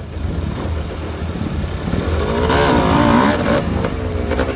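Vehicle engine running and revving; its pitch rises and falls about two to three seconds in, over a steady low rumble.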